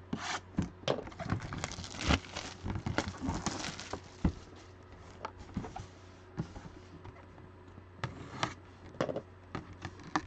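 Cardboard collectible boxes handled, moved and set down: a run of knocks, taps and rustling, busiest in the first few seconds, with a few more knocks near the end.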